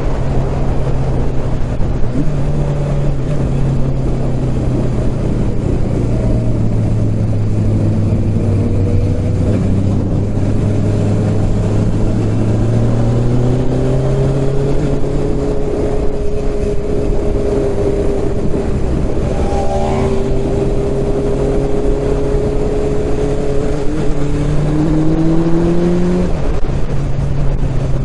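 Motorcycle engine running under way, heard from the rider's helmet with steady wind rush. The engine pitch sags for a few seconds, then climbs and holds, and climbs again briefly near the end as the throttle opens.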